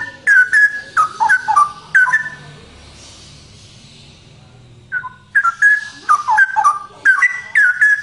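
Male straw-headed bulbul singing loud, quick bubbling phrases of liquid whistled notes. There are two bursts of song with a pause of about three seconds between them.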